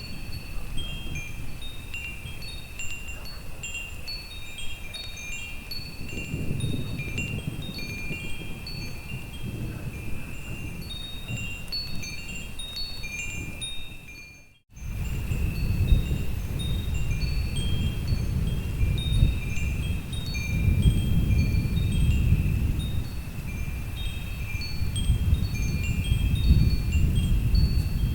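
Wind chimes ringing continuously, many overlapping high tinkling strikes, over a low storm rumble of wind and thunder that swells at times. The sound drops out briefly about halfway through, and the rumble comes back louder.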